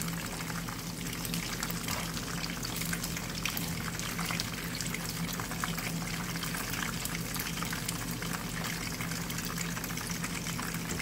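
Flour-breaded bluefish pieces frying in hot oil in a pan: a steady sizzle with many fine crackles, over a low steady hum.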